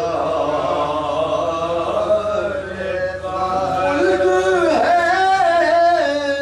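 Male voice chanting an Urdu salaam, a devotional elegiac poem, in long held notes that glide slowly in pitch. About two-thirds of the way in, the voice climbs to higher sustained notes.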